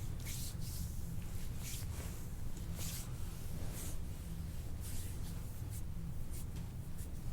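Soft rubbing and brushing of hands working firmly over skin and clothing, in short irregular strokes, over a steady low hum.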